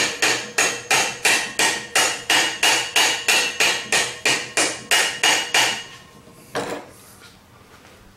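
Soft-faced hammer pounding a split taper bushing onto an electric motor's keyed shaft: quick, even blows about three a second, each with a slight metallic ring. The blows stop about six seconds in, followed by one single knock.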